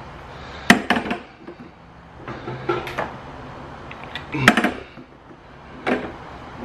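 Metal caster-wheel frame parts of a sit-on creeper clanking and knocking against its plastic seat base while being fitted together: a handful of sharp, separate knocks, the loudest about halfway through.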